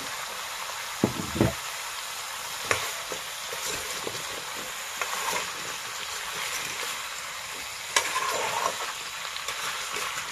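Pork and taro frying in an oiled metal wok with a steady sizzle. A metal ladle scrapes and knocks against the pan as the pieces are stirred, with sharp knocks about a second in and again near eight seconds.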